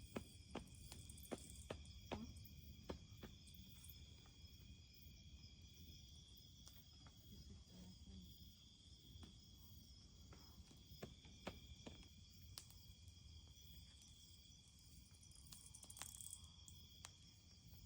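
Faint chorus of insects, steady high-pitched trilling, with scattered soft clicks and a low rumble underneath.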